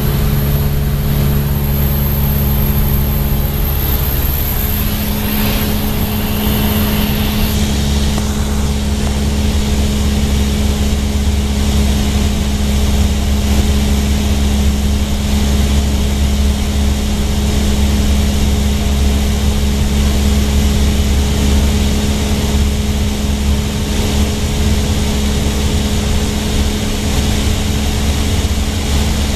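Propeller-driven light aircraft's engine and propeller droning steadily, heard from inside the cockpit during level flight.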